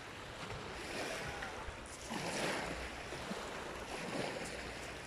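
Small waves washing onto a shingle beach, rising and falling a few times, with wind on the microphone.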